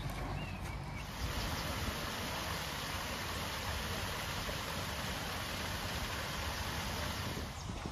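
Water falling over a small stone weir: a steady rushing that starts about a second in and cuts off near the end.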